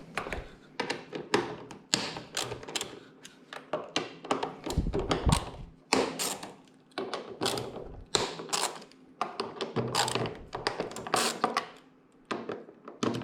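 Hand tools clicking and knocking irregularly against a motorcycle's airbox fittings as its bolts are loosened one by one, with a heavier low thump about five seconds in.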